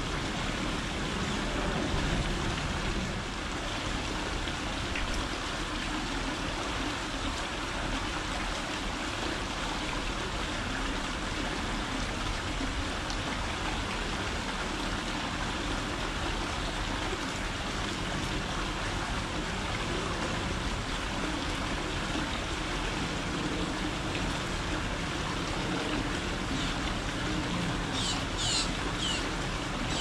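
Steady trickle and rush of running water, with a few short, high bird chirps near the end.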